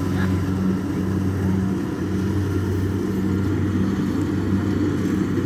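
Kubota DC60 rice combine harvester's diesel engine running steadily as the machine cuts and threshes standing rice, a constant low drone.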